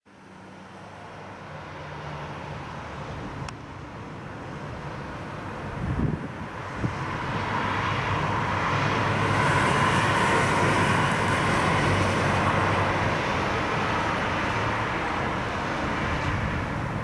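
Distant jet noise of a Boeing 747-8 freighter's four GEnx engines passing high overhead at cruise altitude, a steady rushing rumble that swells to its loudest about ten seconds in and then eases slightly. Two short low thumps about six seconds in.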